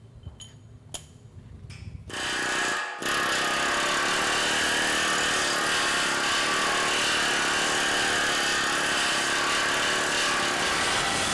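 Air hammer with a beading tool hammering the flared end of a steel boiler tube over into a bead against the tube sheet: a loud, fast, continuous rattle that starts about two seconds in, breaks off for a moment, then runs on steadily.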